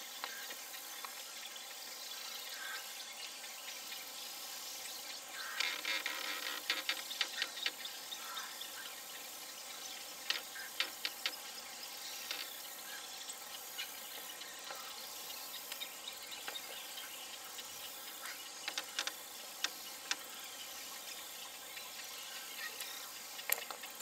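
Outdoor pond ambience: a steady hiss with scattered quick chirps and clicks, a dense cluster about six seconds in and shorter runs around ten seconds, nineteen seconds and near the end.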